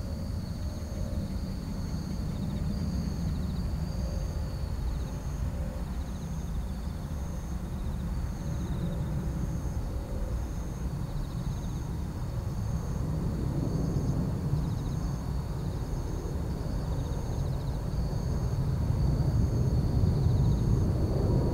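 Emirates Airbus A380-861 on final approach, its four Engine Alliance GP7200 turbofans a low, steady rumble that grows louder as the airliner comes closer. Faint high-pitched repeating tones sound in the background.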